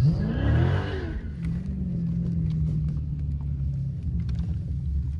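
Dodge Scat Pack's 6.4-litre HEMI V8 heard from inside the cabin, revving up and back down in the first second, then running steadily at lower revs as the car drives on.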